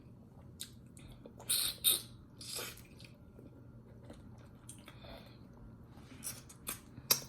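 Close-up chewing with wet mouth smacks and clicks: scattered short bursts, the loudest a pair about a second and a half in, with a few fainter smacks later.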